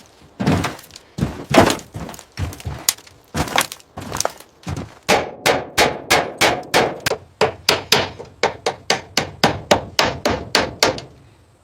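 A long series of hard, woody knocks: irregular at first, then from about halfway a steady run of about three strikes a second that stops shortly before the end.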